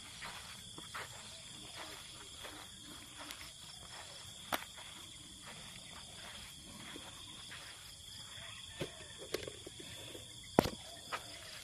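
Steady high chirring of insects, with scattered clicks and knocks from a hooked African catfish swinging and thrashing on the line. There is one sharp, loud knock about ten and a half seconds in, as the fish drops onto the sand.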